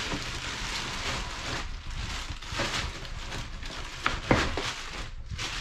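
Plastic wrapping crinkling and rustling as a heavy inverter in a plastic bag is handled and set down into a cardboard box, with a couple of knocks about four seconds in.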